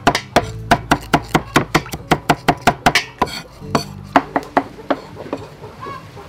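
Steel cleaver chopping on a round wooden chopping block, mincing with quick, even strikes about five a second. It pauses briefly about three seconds in, then chops on for another second or two.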